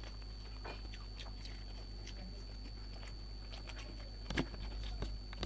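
Faint chewing and wet mouth clicks of a person eating close to the microphone, with a slightly louder smack about four seconds in, over a steady low electrical hum.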